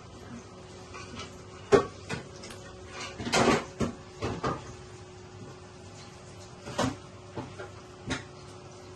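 Scattered light knocks and clicks, about a dozen spread irregularly over several seconds, over a faint steady hum.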